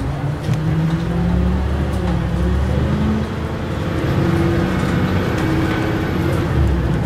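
Campus transit bus running, heard from inside the cabin: a steady low engine drone and road rumble, its pitch drifting as the bus changes speed, with light scattered rattles.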